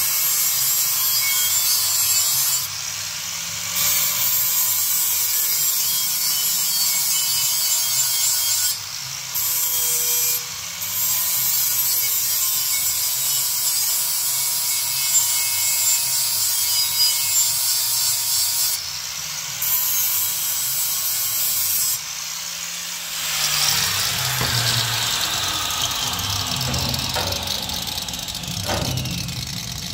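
An abrasive power tool grinding metal in long runs, with a few short breaks where it stops and starts again. It stops a little after two-thirds of the way through, and a few light knocks follow.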